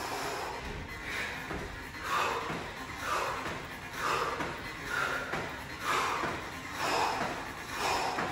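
A woman breathing hard from exertion, puffing out sharply through the mouth about once a second.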